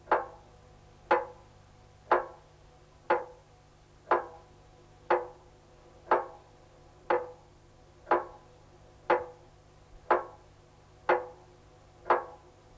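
A sharp percussive knock repeated evenly about once a second, thirteen times, each with a short ringing tail that dies away quickly.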